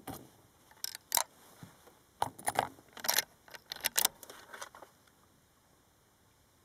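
A run of irregular light clicks and rattles from gear being handled, which stops about five seconds in.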